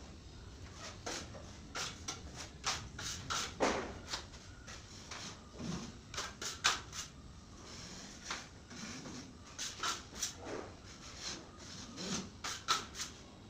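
Putty knife scraping and clicking against a hand trowel and the fibre-cement ceiling board as joint compound is spread over the board seams: short, irregular strokes, some with a light knock.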